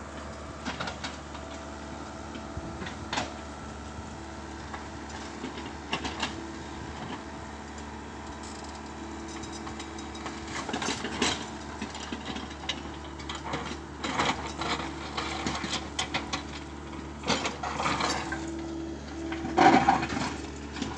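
Komatsu hydraulic crawler excavator's diesel engine running steadily under load while the bucket and tracks work through soil and tree roots, with repeated knocks, scrapes and crunches. The knocks come thicker and louder in the second half, loudest just before the end.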